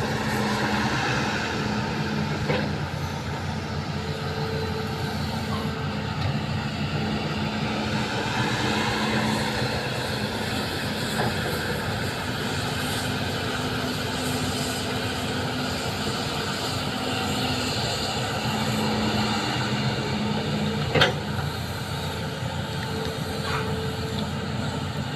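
Excavator's diesel engine running steadily under work, with a few short knocks and one sharp clank late on.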